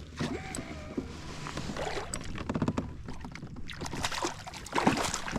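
Irregular clicks, knocks and splashing around a fishing kayak as a hooked bass is fought and brought aboard, with a louder cluster of knocks near the end.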